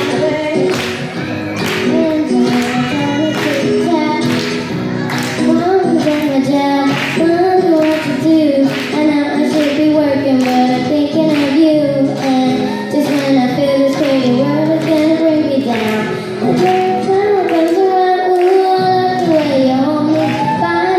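A girl singing a pop song into a microphone over a recorded backing track with a steady beat, about two beats a second.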